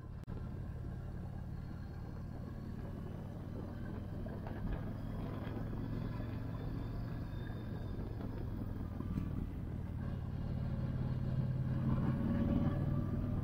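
Cruiser motorcycle engine running steadily under way, heard from the rider's seat over road noise. It grows louder about ten seconds in.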